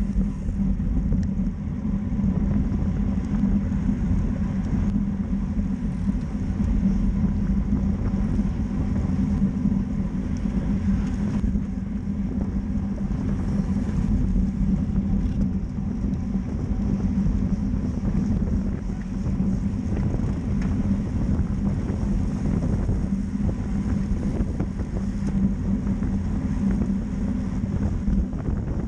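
Steady wind rush on a bike-mounted camera's microphone while riding in a racing bunch at about 27 mph, with a low, even rumble of rolling road noise underneath.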